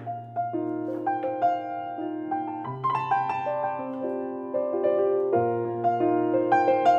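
Grand piano played live: a slow piece with low bass notes held for a few seconds each under a melody of single notes moving above.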